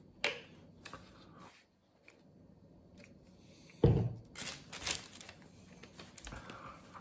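Paper wrapping rustling and tearing as a sub sandwich is unwrapped at the table, with a sharp click early on and a sudden thump on the table about four seconds in, the loudest sound.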